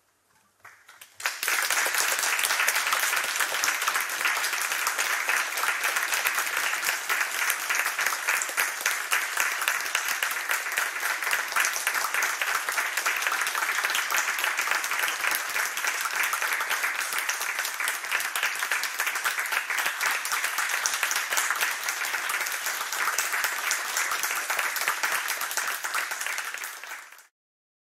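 Audience applauding steadily, starting about a second in and cutting off suddenly near the end.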